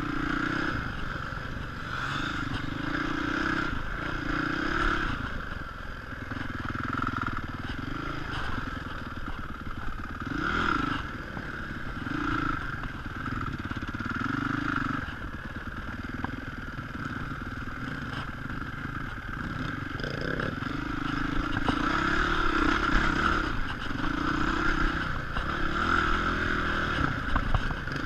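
Enduro dirt bike engine heard up close from the bike itself, revving up and easing off again every second or two under the rider's throttle.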